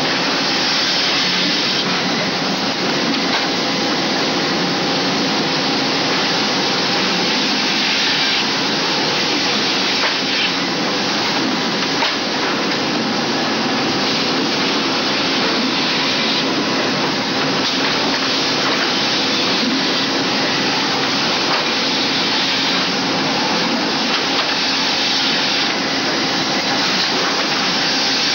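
Multi-saw circular resaw line and its conveyors running in a wood-processing plant. The noise is loud and steady, with faint steady hum tones underneath.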